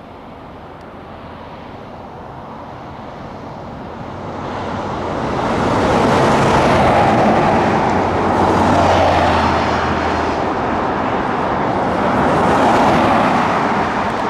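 Firefighting air tanker flying low nearby, its engine noise growing louder over the first six seconds and staying loud with slight swells before it cuts off suddenly at the end.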